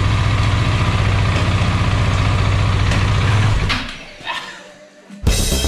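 Husqvarna 701 Enduro's single-cylinder four-stroke engine idling steadily, then stopping about three and a half seconds in. It dies away to near quiet with a faint knock, and music with drums starts near the end.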